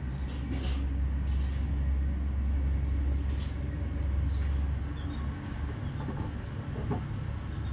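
Low, steady engine rumble of a heavy vehicle, fading out about five seconds in, with a few faint light clicks.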